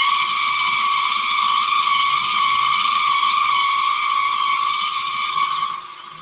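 Food processor motor running at a steady high whine, blending a thick mushroom filling. The sound drops sharply in level shortly before the end, and a fainter whine carries on.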